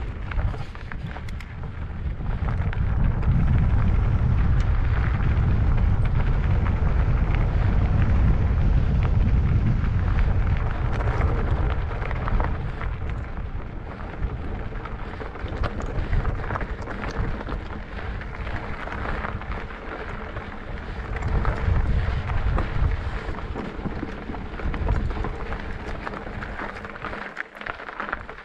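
Wind buffeting the microphone of a mountain biker's camera while riding a dirt trail, with tyre noise and frequent small knocks from the bike over rough ground. The rumble is heaviest in the first half.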